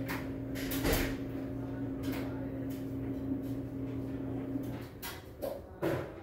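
Household knocks and clacks, like cabinet doors or drawers being opened and shut, several times. Under them a steady electrical hum runs and cuts off near the end.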